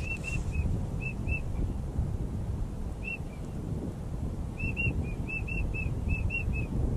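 Wigeon whistles: short, high, clear whistled notes all at one pitch, a few in pairs at first, one alone, then a quick run of about ten near the end. Wind rumbles on the microphone underneath.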